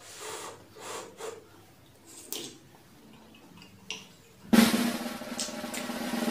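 A few soft puffs of breath blowing on a hot dumpling on a spoon, then a couple of light clicks of a metal spoon in a ceramic bowl. About four and a half seconds in, loud music with a drum roll starts suddenly.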